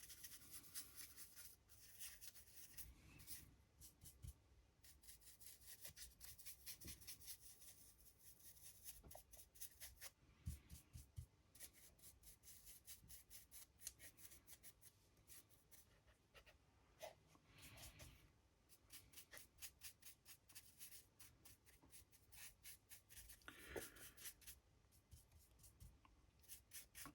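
Faint, rapid scratching and rubbing of a paintbrush working paint over a 3D-printed miniature, with a few light knocks from handling the model.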